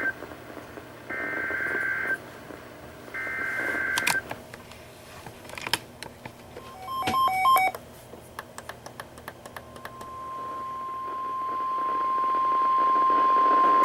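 NOAA Weather Radio EAS alert: the SAME header's shrill two-tone data bursts, about a second each with one-second gaps, signalling a Special Marine Warning. A few clicks and short beeps follow. About ten seconds in, the steady single-pitch 1050 Hz Warning Alarm Tone starts and grows louder.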